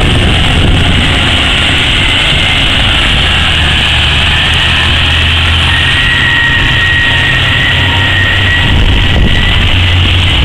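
Heavy diesel engines of a hydraulic mining shovel and a haul truck running steadily, with a deep hum. A thin high whine comes in for a few seconds past the middle as the shovel swings its loaded bucket over the truck.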